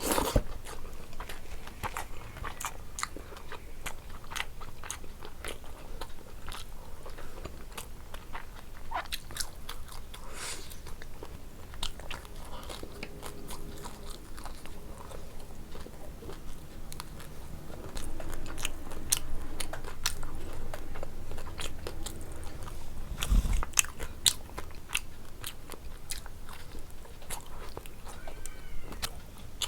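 Close-miked eating: chewing and crunching food, with many short sharp mouth clicks and smacks, and one heavier low thump about two thirds of the way through.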